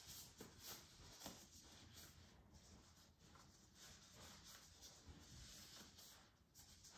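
Faint rustling and brushing of blue disposable gloves and a disposable isolation gown as the gloves are pulled on and their cuffs drawn over the gown's sleeves.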